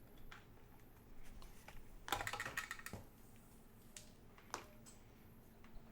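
Scattered light clicks, with a short run of rapid clicking about two seconds in, from small equipment being handled on a workbench.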